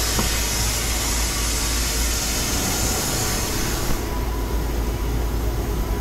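Vacuum extraction rig running steadily, a loud rushing hiss over a low hum, as it sucks coolant out of the radiator. The high hiss drops off about four seconds in.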